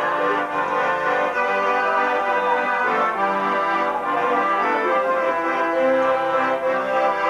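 Accordion dance music: a tune and chords on sustained, reedy notes, steady and loud, with no speech over it.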